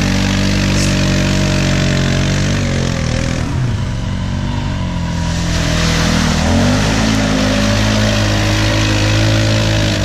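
ATV engines revving as two quads pull through a deep mud hole one after the other. The engine note dips and fades as the first quad moves off, then a second engine comes in and revs up about two-thirds of the way through.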